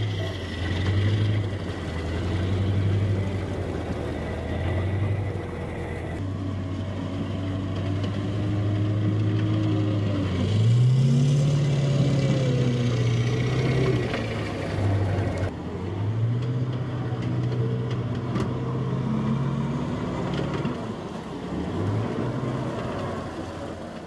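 Amphibious Assault Vehicle's diesel engine running with a low drone as the tracked vehicle drives up out of the water. The engine's pitch rises about halfway through, dips briefly, then rises again.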